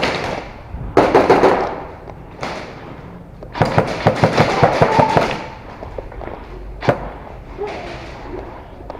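Airsoft guns firing in rapid bursts of sharp pops: a short burst about a second in, a longer one midway, and a single shot near the end.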